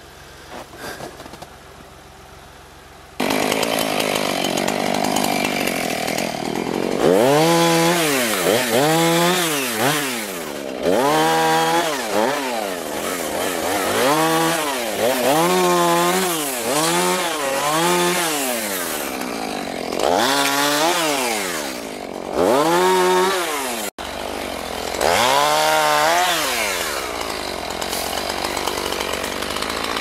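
Two-stroke Husqvarna 445 chainsaw with a 16-inch bar starts running about three seconds in. It is then revved up and down over and over, about once every second or two, as it makes short cuts limbing a felled white pine.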